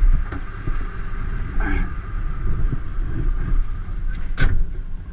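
Low steady rumble of a Volvo FL fire engine's diesel idling, with scattered knocks and thumps as someone climbs into the crew cab. One loud bang comes about four and a half seconds in.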